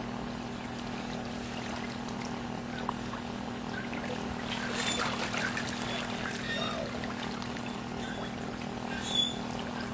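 Shallow pond water trickling and sloshing over a steady low hum, with a stretch of livelier splashing about five seconds in and a short sharp sound near the end.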